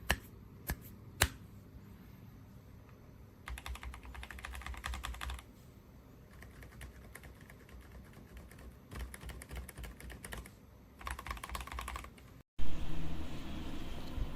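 Typing on a mechanical keyboard with Haimu silent switches: a few single key taps, then several bursts of rapid keystrokes. Near the end the sound cuts off and a louder knock is followed by steady noise.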